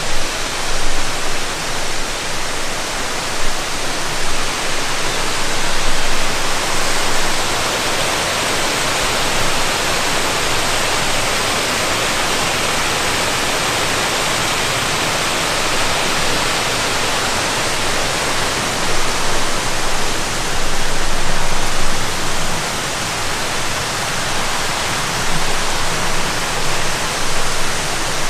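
Rushing water, a steady loud rush with small swells in level.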